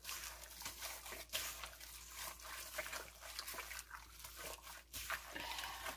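Faint, irregular wet squishing of raw chicken pieces being mixed and rubbed by gloved hands in a stainless steel bowl to work in the seasoning.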